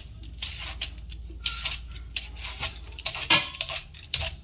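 Metal Y-shaped vegetable peeler scraping the skin off a raw butternut squash in quick repeated strokes, about two or three a second, the sharpest about three seconds in. A low steady hum lies underneath.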